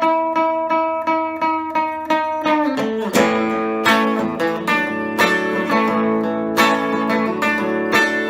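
Epiphone Casino hollow-body electric guitar played clean through a Vox AC15C1X valve amp on its Top Boost channel, strumming chords. Quick, even strokes on one chord give way to a new chord about three seconds in, then looser strumming.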